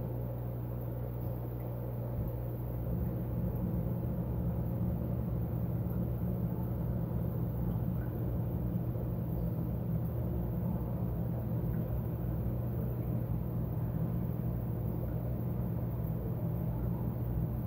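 Steady low hum of an aquarium air pump with the bubbling of the air stream in the tank, a little louder from about three seconds in.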